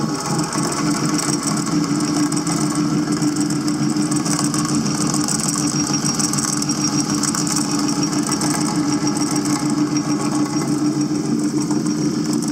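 Delta tabletop drill press running steadily under its own motor, a constant hum with a steady tone.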